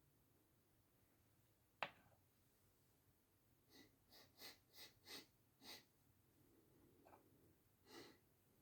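A person sniffing through the nose, faint: a sharp click a couple of seconds in, then six quick sniffs about a third of a second apart, and one more near the end, the irritated nose building toward a sneeze.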